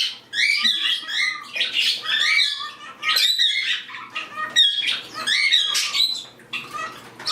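Cockatiel chattering to a young cockatiel: a busy run of short squawky chirps and warbled whistles, broken by brief pauses.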